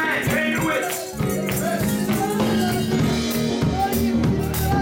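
Gospel church music: a tambourine shaken in rhythm over drums and a band, with voices singing or shouting along.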